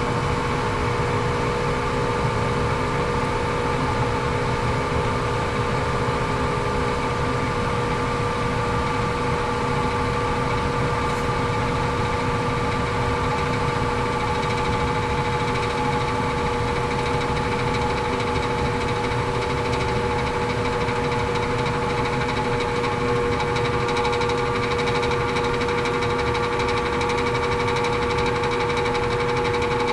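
HVAC blower motor running continuously with a steady whine over a low rumble; the motor is noisy and judged to need replacing.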